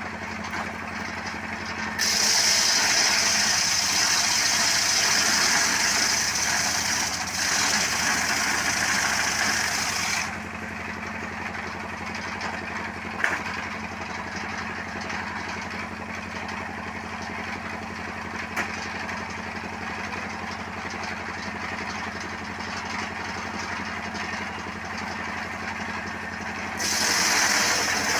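Motorcycle engine running steadily to drive a wood-cutting saw. A loud, high-pitched cutting noise from the saw comes in about two seconds in and lasts some eight seconds, and starts again just before the end.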